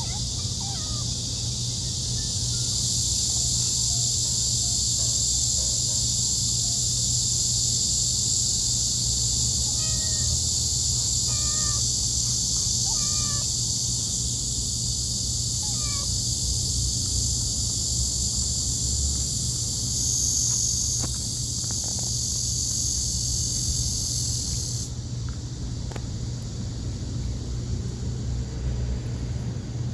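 A loud, steady cicada drone that cuts off suddenly near the end. Four or five short cat mews come about ten to sixteen seconds in, over a steady low hum.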